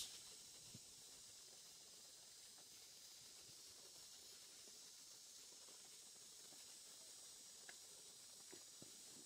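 Near silence: a faint steady high hiss with a few soft clicks near the end.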